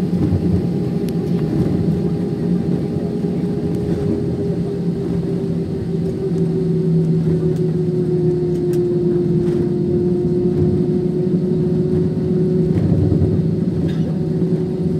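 Jet airliner engines heard from inside the cabin during taxi: a steady drone with a low hum and a mid-pitched tone that sinks slightly about halfway through.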